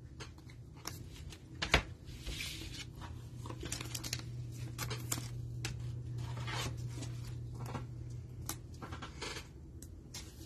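Gloved hands handling trading cards and plastic card holders: soft rustles and scattered light clicks, with a card slid into a rigid plastic toploader near the end.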